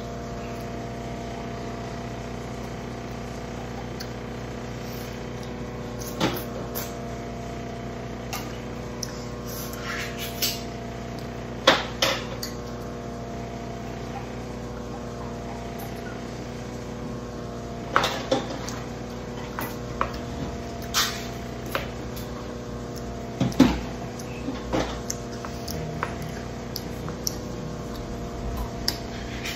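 Dishes and utensils clicking and knocking now and then during a meal, over a steady electrical hum.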